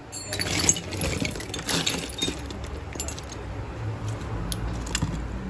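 Small metal carburettor parts clinking and rattling as a hand rummages through a box of spare parts.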